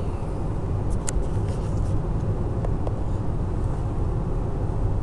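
Steady road and engine rumble heard inside the cabin of a 2006 Chevy HHR cruising at highway speed, with a light click about a second in.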